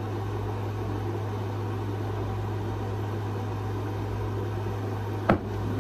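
Steady low hum of a running window air conditioner, with two sharp clicks about half a second apart near the end.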